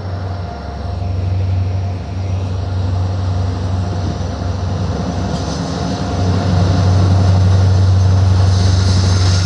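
CC72100 diesel locomotive hauling a Corail intercity train, its engine a deep steady drone that grows louder about six seconds in as the train comes closer. A higher hiss joins near the end.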